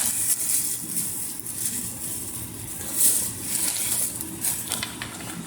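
Intermittent rustling and crinkling of plastic packaging and clothing being handled, in short bursts, with a few louder crinkles about three seconds in.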